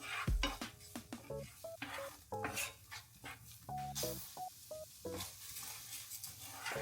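Food sizzling in a pan and being stirred, with pots and utensils clinking, over light background music of short notes.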